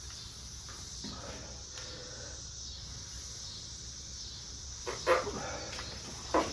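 A dog barking: a faint call about a second in, then a louder sharp bark about five seconds in and another short one near the end, over a steady faint high hiss.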